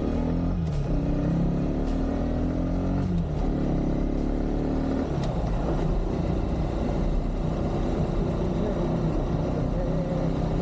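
Kawasaki KSR110's single-cylinder engine pulling the bike along. Its pitch rises and drops a few times in the first half as it accelerates and changes gear, then holds steadier, over a steady low rumble.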